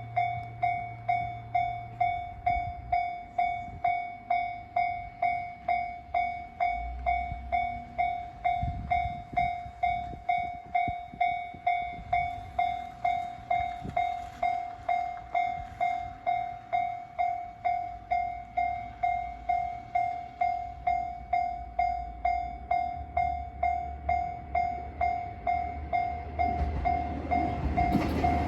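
Japanese railway level-crossing warning bell ringing its repeated 'kan-kan' at a little under two strikes a second. Near the end the rumble of an approaching train grows louder under it.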